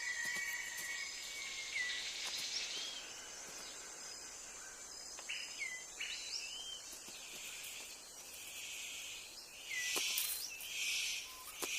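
New Guinea rainforest ambience: several birds calling in short rising and hooked chirps over a steady insect hiss, with louder rustling hiss bursts near the end.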